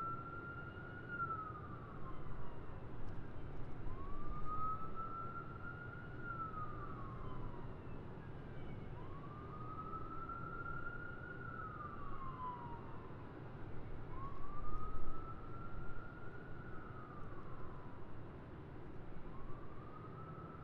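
Emergency-vehicle siren wailing in slow rising-and-falling sweeps, about one every five seconds, over a low steady rumble of city traffic.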